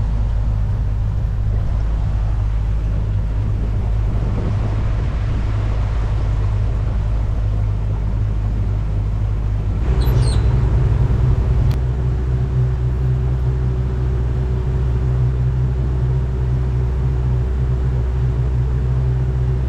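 A small boat's motor running steadily at low speed, with water and wind hiss. About halfway through, its note changes and then holds steady again.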